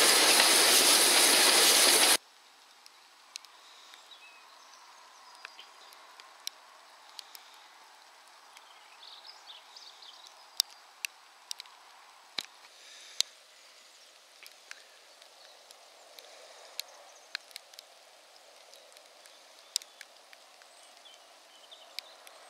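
Loud running noise of a steam train heard through an open carriage window, cut off suddenly about two seconds in. It gives way to quiet outdoor background with scattered sharp ticks.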